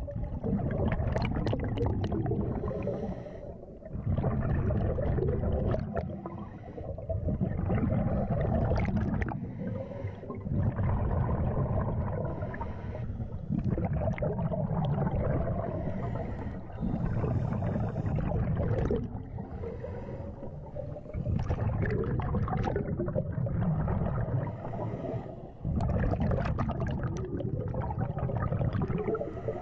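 Scuba diver breathing through a regulator underwater: rumbling bursts of exhaled bubbles every few seconds, with quieter gaps between them while the diver inhales.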